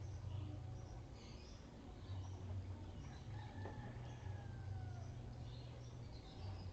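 A rooster crows once about three and a half seconds in, a drawn-out call that falls in pitch. Faint high chirps of small birds and a steady low hum run underneath.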